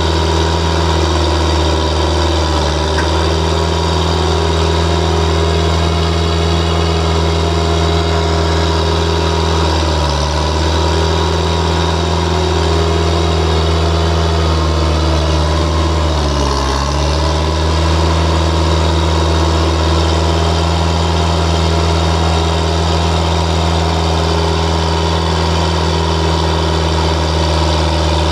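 Skid steer engine running at a steady speed, with its pitch dipping briefly twice, about ten and sixteen seconds in, as it takes on load.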